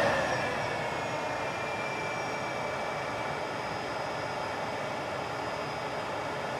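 Dell PowerEdge M1000E blade chassis fans running as a steady rushing hiss with a faint high whine. A falling whine fades out and the level eases in the first second, then the sound holds steady as the fans settle to a lower speed.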